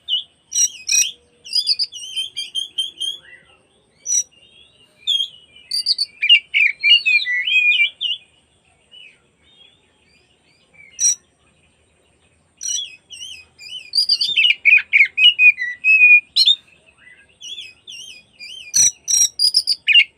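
Oriental magpie-robin (kacer) singing: bursts of varied, quickly changing whistles and chirps, with a quieter pause of a few seconds midway.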